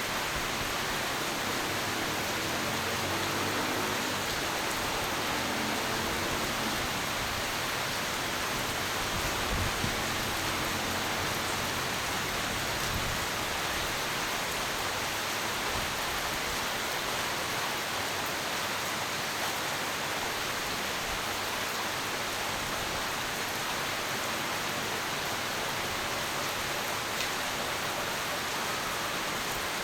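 Steady heavy rain falling, an even hiss throughout, with a brief low rumble about a third of the way in.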